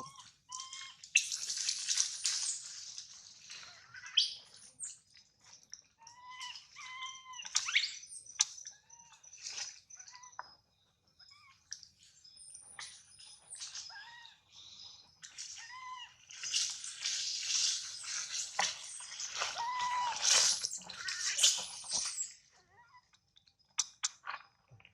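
Short, high chirping animal calls, some in quick pairs, over stretches of hissing noise that come and go.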